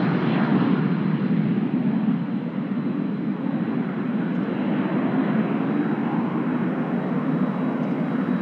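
Beechcraft Premier I business jet taking off on its twin Williams FJ44 turbofans: steady jet engine noise at takeoff power as it rolls, lifts off and climbs away, with a thin steady high whine above the roar.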